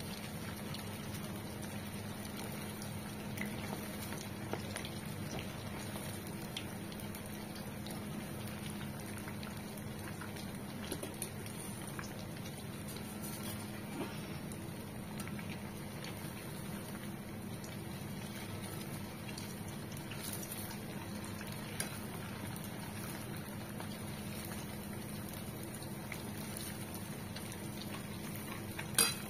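Sabudana balls deep-frying in hot oil in a kadhai: a steady bubbling sizzle with scattered small crackles. A single sharp click comes near the end.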